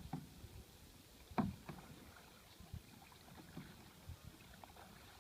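Kayak paddle strokes in the water: faint, irregular splashes about a second or so apart.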